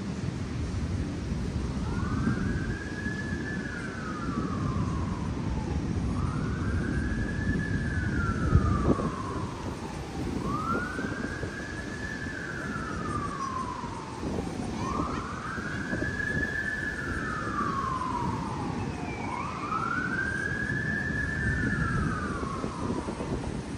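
An emergency-vehicle siren wailing in slow rising and falling sweeps, about four seconds each, five in a row, over a steady low rumble of wind on the microphone. One sharp thump about nine seconds in.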